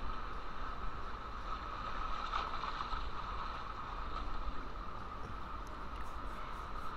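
Shallow sea water washing and surging over rocks around the feet, a steady rushing noise with a low rumble, swelling a little near the middle as a wave comes through.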